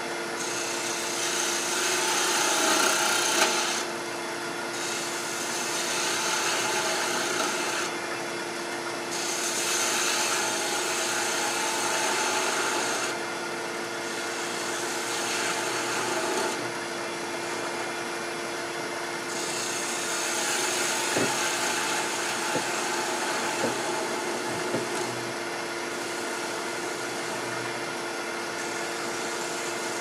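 Wood lathe running with a steady hum while a gouge cuts a small Macassar ebony spindle. The cutting hiss comes in several passes of a few seconds each, with a few light ticks past the middle.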